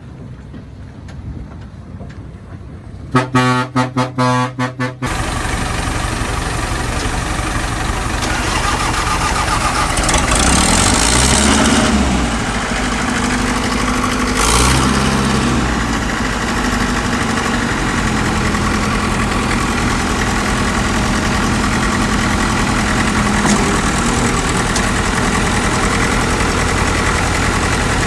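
A horn beeps about half a dozen times in quick succession, then a heavy diesel engine of earthmoving machinery runs loud and steady, revving up twice.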